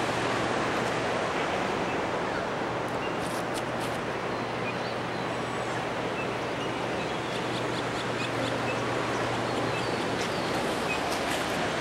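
Steady outdoor ambience, an even wash of noise with no single source standing out, with a few faint bird chirps over it.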